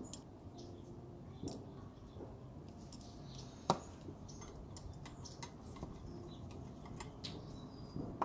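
Faint scattered clicks and light scrapes of a screwdriver and mounting screws as a metal mounting bracket is screwed onto an electrical box, with one sharper click about three and a half seconds in.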